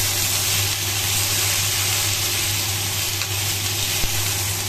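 Salmon fillets sizzling steadily in a non-stick frying pan, frying in their own fat with no oil added. A steady low hum runs underneath, and there is a single light tap about four seconds in.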